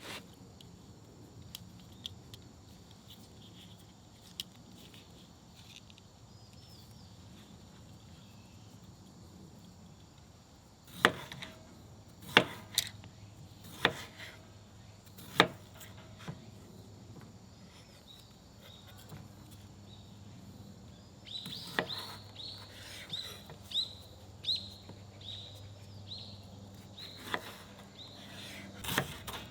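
Quiet woodland ambience with faint bird chirps, then four sharp knocks about a second and a half apart, followed later by a run of light, fairly regular taps, like work at a camp table.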